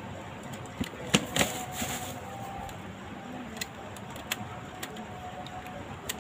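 Rubber bands being stretched and wrapped by hand around a smartphone to clamp its freshly glued display: a handful of sharp snaps and clicks against the phone body, with a brief rustle between one and two seconds in.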